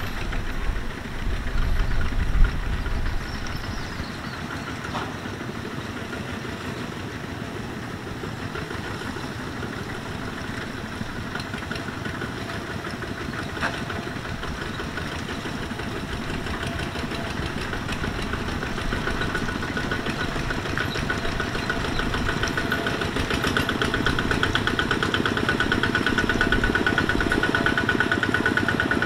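Single-cylinder diesel engines of two-wheel walking tractors chugging steadily as they drive along a muddy track, getting louder near the end as one comes close. A few heavy low thumps in the first three seconds.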